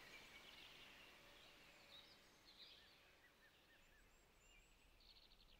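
Near silence: faint outdoor ambience with a few soft, high bird chirps.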